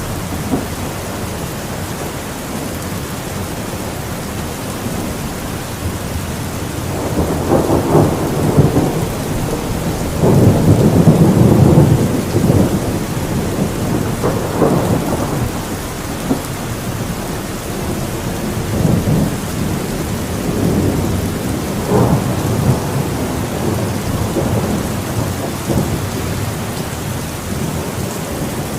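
Heavy rain falling steadily through a thunderstorm, with thunder rumbling several times; the longest and loudest roll comes about ten to twelve seconds in.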